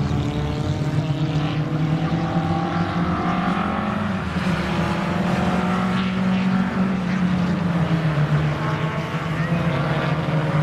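Engines of several classic racing cars running hard on a circuit straight, their overlapping engine notes rising and falling as the cars accelerate and pass.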